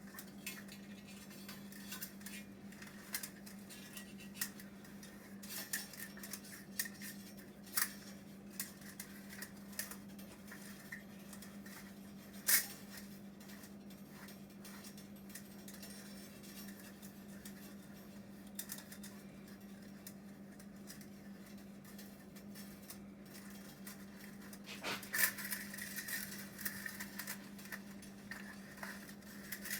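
Scattered metallic clinks and taps of tools and steel parts being handled at a workbench, with a sharper knock about halfway through and a busier run of clinks near the end, over a steady low hum.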